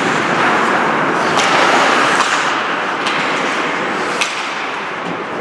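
Ice hockey play in a rink: skates scraping on the ice and about four sharp clacks of sticks and puck, over the steady noise of the arena.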